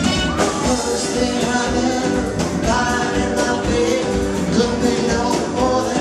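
Live band playing a song, a singer's voice over a steady drum beat.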